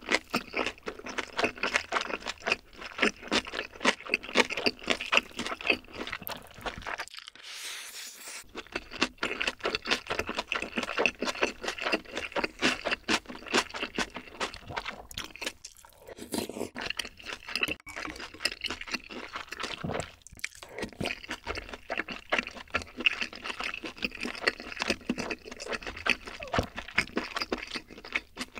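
Close-miked chewing and wet mouth sounds of eating soy-sauce egg rice: a dense run of small clicks and smacks, with a short lull about seven seconds in.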